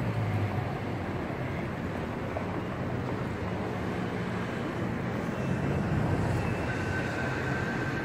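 Steady city traffic noise: a continuous rumble with a low engine hum, and a faint thin whine coming in after about five seconds.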